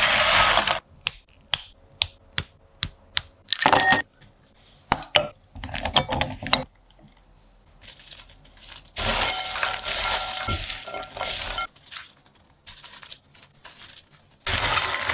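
Popcorn handled in glass dishes: a rush of popcorn tumbling into a glass dish, then a string of separate light, sharp clicks and clinks. Later comes a longer rustle as popcorn is stirred in a glass bowl, and near the end another loud rush.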